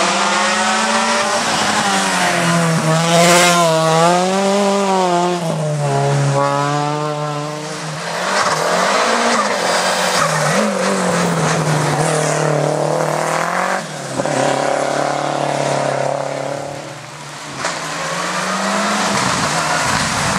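Hill-climb race car engine revving hard, its pitch climbing and falling again and again through gear changes and corners. The engine briefly lets off twice in the second half.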